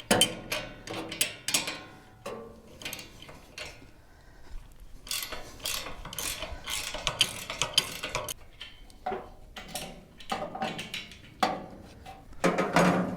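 Hand ratchet wrench clicking in short, quick runs, on and off, as bolts are worked loose.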